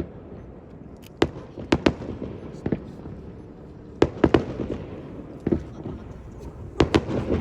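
Fireworks display: aerial shells bursting with sharp bangs in irregular clusters of two or three, with a steady crackling hiss between them.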